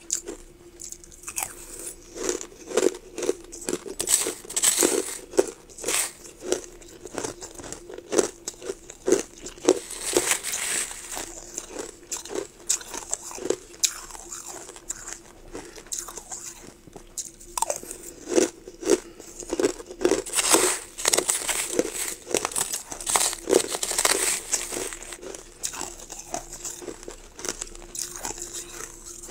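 Crushed ice crunching in dense, irregular crackles that come in heavier spells.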